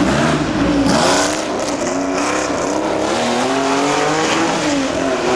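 Historic rally car engine revving hard and pulling through the gears, its pitch climbing and dropping back several times, with a burst of noise about a second in.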